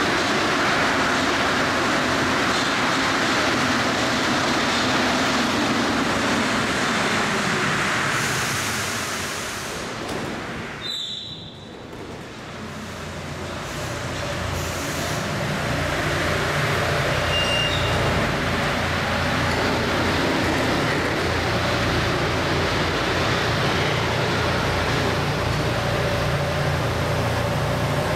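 Rubber-tyred MP59 Paris Métro train running in along the platform and braking, its noise fading as it comes to a stop about eleven seconds in. Then the standing train gives off a steady low hum that builds and holds.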